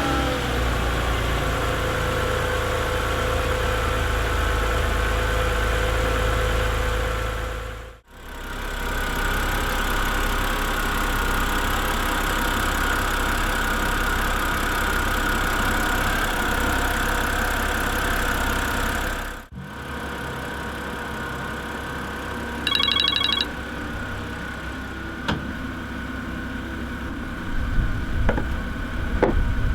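BMW N52 inline-six idling on a cold start at 269,000 miles, with the valvetrain ticking typical of noisy hydraulic lifters. The sound cuts off sharply twice. After the second cut it is quieter, with a short electronic beep a little before the end and a few clicks.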